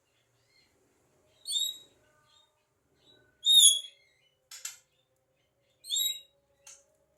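Javan myna calling: three short, high calls about two seconds apart, with two sharp clicks between and after them.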